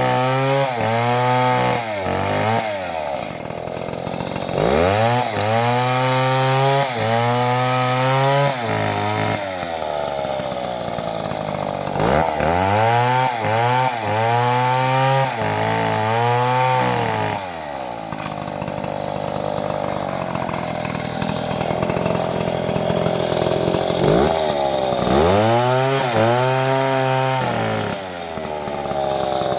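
Stihl two-stroke chainsaw revving hard in repeated bursts, its pitch climbing to full revs and dropping off again about four times, with lower, rougher running in between.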